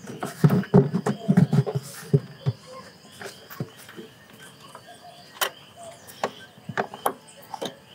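Plastic air cleaner box lid being pressed and worked into place on the air box: a run of dull knocks and rattles for the first couple of seconds, then a few sharp separate clicks. Insects chirp faintly underneath.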